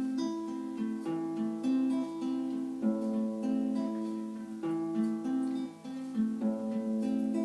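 Acoustic guitar playing a picked chord intro, with notes changing about every half second.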